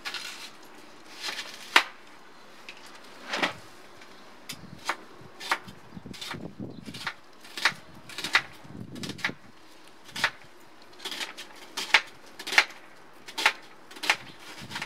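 Kitchen knife cutting through an onion on a thin plastic cutting board. Uneven sharp knocks come roughly one or two a second as the blade goes through and strikes the board.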